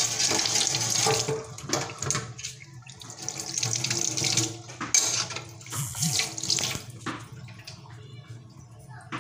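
Kitchen faucet running into a stainless steel sink, the stream splashing over a hand and the basin, with water draining down a drain that has just been unclogged. The splashing is loudest in the first couple of seconds and quieter near the end.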